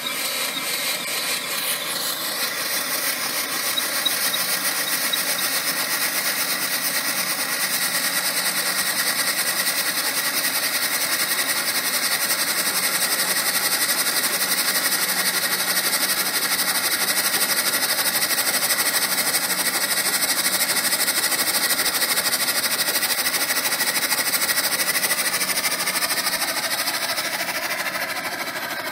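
Small 1940s navy steam engine, an 8 HP unit built to drive a ship's deck-light generator, running with a rapid, even mechanical beat. It builds up over the first few seconds and eases off near the end.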